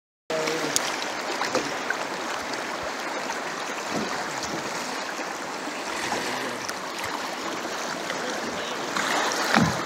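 Fast creek water rushing over riffles around the kayaks, a steady hiss.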